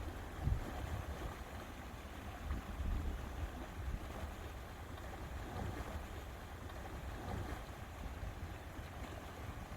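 Wind gusting on the microphone over a steady rush of lake water lapping, with stronger gusts about half a second and three seconds in.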